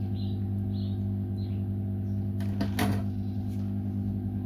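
Steady electrical hum with a low pitch and its overtones, with a few light taps and a sharper click just before three seconds in.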